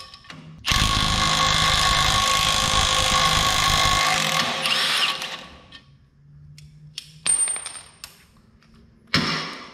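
Milwaukee M18 FUEL high-torque cordless impact wrench hammering on a stump-grinder tooth bolt for about three seconds to break it loose, then two brief bursts as the loosened nut is spun off.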